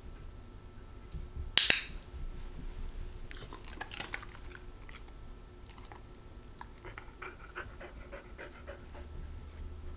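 A training clicker clicks once, sharply, about one and a half seconds in, marking the dog's bow. It is followed by a cattle dog panting in a quick, even rhythm, with light rattles and rustles as the dog moves.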